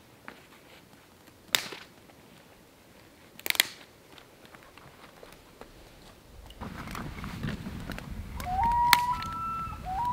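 Dry sticks snapping: sharp single cracks about two seconds apart near the start. A little past halfway a low steady rumble sets in, and near the end comes a common loon's wail twice, a clear call that steps up in pitch and then holds; the second wail is the louder of the two.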